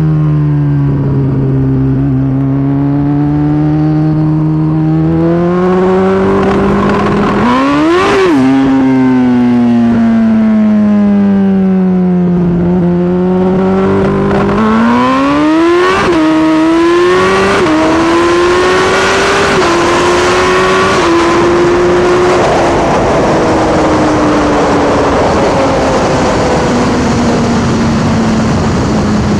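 Turbocharged Suzuki Hayabusa inline-four accelerating hard at full throttle through the gears. Two long pulls are each cut by a sharp drop in revs at an upshift, about eight and sixteen seconds in, followed by several quick upshifts. From about twenty-two seconds in the revs fall away steadily as the rider rolls off the throttle, under heavy wind noise; the rider can't stay in the throttle in a bad crosswind.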